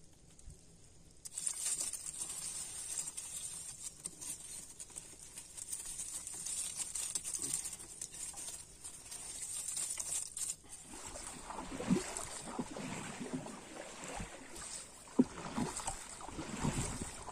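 Freshly caught shrimp rustling and pattering as they are handled and sorted in the bottom of a wooden canoe. About ten seconds in, this gives way to a canoe paddle dipping and splashing in river water, in irregular strokes.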